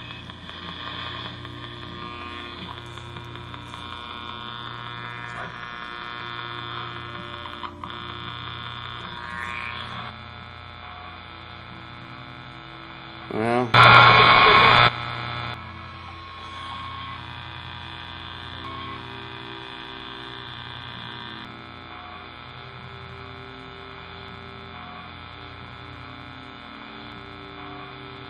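Ghost box, a radio altered to scan frequencies without stopping on any station, sweeping through the band: a steady hum with static and drifting tones. About halfway through comes one much louder burst lasting about a second and a half.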